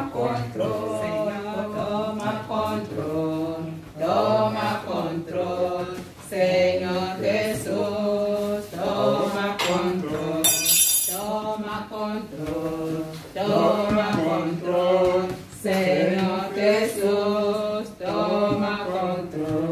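Singing: a melody in held notes that bend up and down, sung in phrases with short breaks, over a steady low drone.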